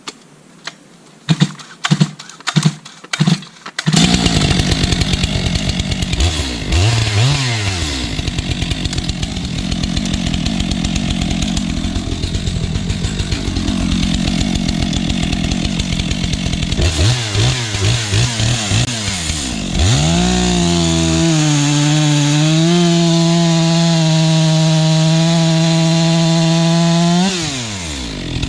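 STIHL MS 462 two-stroke chainsaw with a freshly hand-filed chain. After a few sharp pulls and knocks it fires about four seconds in, revs up and down and runs under load. It drops briefly to a slow idle, then holds a steady high-pitched full-throttle run before letting off near the end. The saw is bucking a firewood log to test the sharpened chain.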